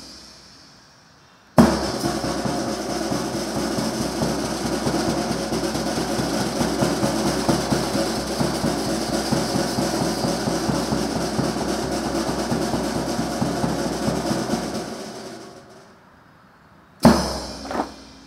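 Ceremonial snare drum roll, a dense run of very rapid strokes held for about thirteen seconds and then fading away. It opens with a sharp crack, and two more sharp cracks come near the end, in time with the guard of honour's rifle drill.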